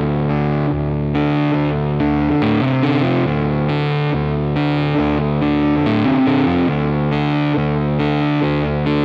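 Background music: distorted electric guitar playing chords.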